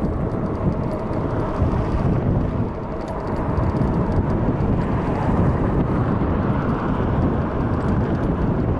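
Steady, loud rushing noise of riding an e-bike along a road: wind buffeting the microphone, with tyre and road noise underneath.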